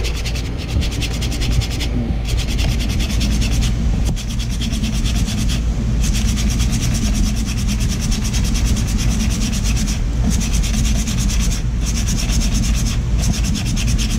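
Sandpaper rubbed rapidly back and forth over the rusty steel shaft of an air-conditioner fan motor, scouring off the rust that was jamming the bearing. It is a continuous rasping with brief pauses every few seconds.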